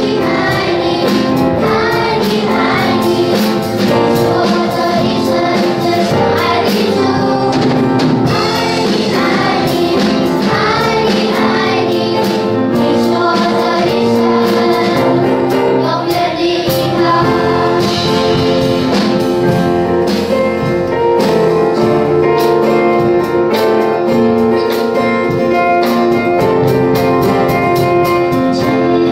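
A group of children singing a worship song together into microphones, over instrumental accompaniment.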